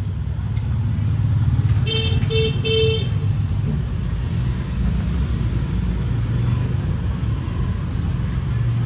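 Steady road traffic rumble, with a vehicle horn beeping three short times about two seconds in.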